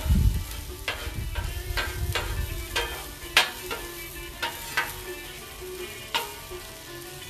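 Onions sizzling on a Blackstone steel flat-top griddle while being stirred, with about ten sharp metal clacks at uneven intervals as the spatula hits the cooktop. The loudest clack comes about three and a half seconds in.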